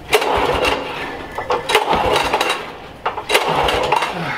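Recoil pull-starter of a commercial walk-behind mower's engine yanked three times, about every one and a half seconds, the engine turning over with each pull but not catching. The hydro drive was left engaged instead of in neutral, and the mower has sat unused for about a year.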